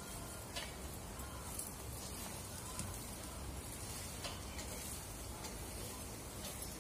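A white plastic rice paddle scraping and knocking against a wok while cooked rice and chicken are turned and mixed, giving a handful of irregular light clicks over a faint steady hiss.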